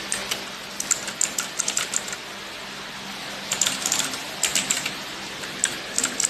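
Typing on a DareU EK87 V2 mechanical keyboard: runs of quick key clicks with short pauses between them, over a steady hiss.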